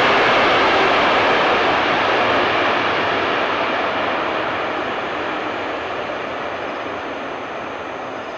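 Jet engine noise from a Boeing 777-300 airliner on its landing rollout: a steady rushing roar that fades gradually as the aircraft rolls away down the runway.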